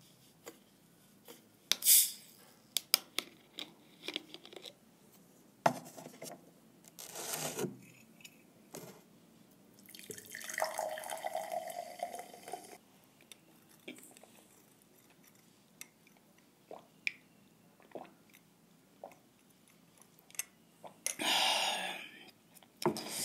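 A plastic bottle of Fanta being opened and the soda poured out: short fizzing hisses, a couple of seconds of pouring liquid in the middle, and scattered clicks and taps of the bottle being handled.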